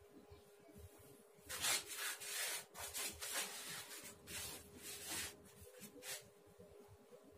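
Pen scratching on a sheet of paper taped to a wall: a run of short scratching, rubbing strokes starting about a second and a half in and stopping about a second before the end.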